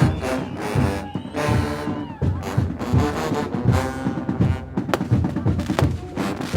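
Mexican banda brass band playing: brass horns over a steady, regular beat from the low brass and drums.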